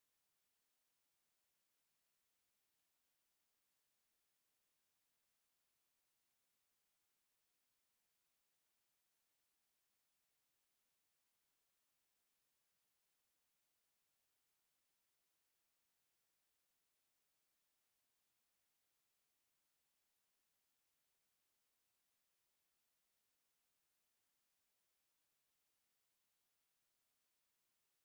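A steady pure sine-wave test tone at 5921 Hz, a single high-pitched whistle-like pitch held unchanged at a constant level.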